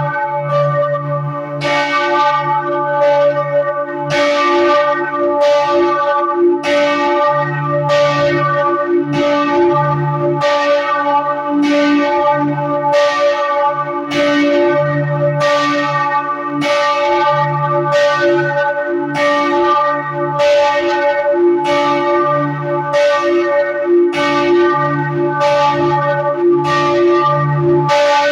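The bells of Freiburg Minster ringing together for the daily midday peal. Strikes follow each other a little more than once a second, overlapping over a lasting, humming ring, with the lowest bells sounding at their own uneven pace.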